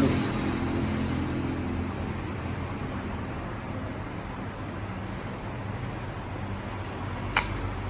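Steady background hum and noise, with one sharp click near the end.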